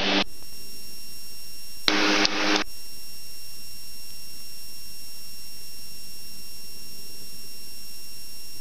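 Beechcraft King Air B100's turboprop engines running steadily at low power in the cockpit: an even hiss with a faint high whine. About two seconds in, a short buzz sounds for under a second.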